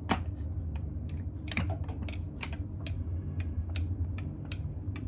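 Light, irregular wooden clicks and knocks as the pieces of an all-wood toy are handled and set onto its long wooden track.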